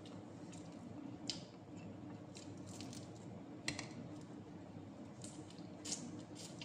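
Fingers picking apart smoked fish on a plate: soft wet squishing with several sharp little clicks, the loudest about a second in, near the middle and near the end, over a steady low hum.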